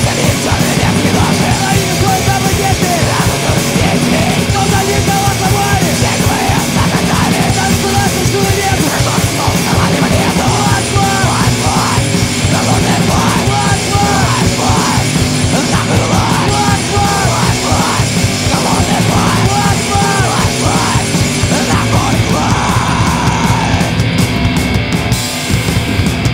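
Loud, heavy punk-metal rock music playing without pause, with a shouted vocal line over the band.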